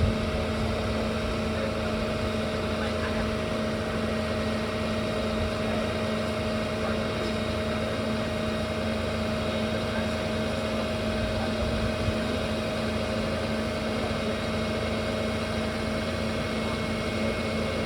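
An engine idling steadily: an even drone with a few fixed tones and no change in speed.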